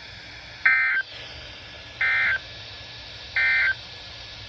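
Three short bursts of EAS/SAME digital data tones from a NOAA Weather Radio broadcast, each a harsh buzzy warble about a third of a second long, spaced a little over a second apart. Their shortness, just after the warning text ends, fits the end-of-message code that closes an alert.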